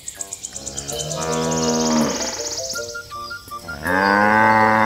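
Domestic cow mooing once near the end, one long loud moo that rises and falls in pitch, over light background music. About a second in comes another long, lower animal call.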